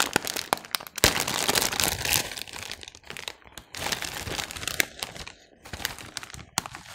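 A foil-lined plastic snack bag crinkling and tearing open, with sharp crackles and rustling as the bag is pulled apart.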